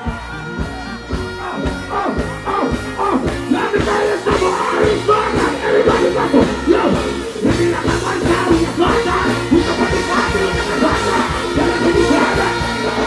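Dancehall music played live over a PA system: a steady beat with a vocalist on microphone over it.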